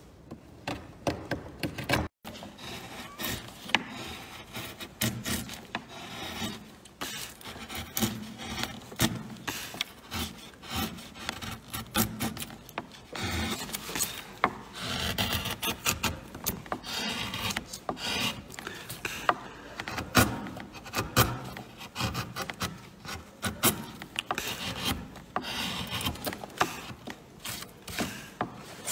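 Hand carving gouge cutting into wood: a continuous, irregular run of short scraping slices and sharp clicks as shavings are pared from the panel.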